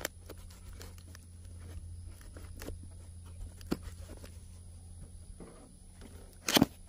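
Small taps, scrapes and clicks from a cardboard box being handled and its tape picked at with fingers, with one louder knock about six and a half seconds in.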